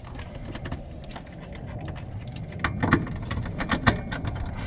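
Irregular light clicks and metal taps of hand tools and loosened bolts on a car's exhaust, over a steady low background hum.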